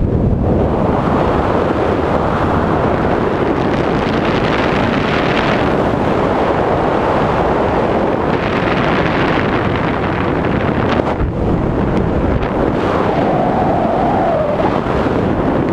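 Steady, loud rush of wind buffeting the microphone of a head-mounted camera during a descent under an open ram-air parachute.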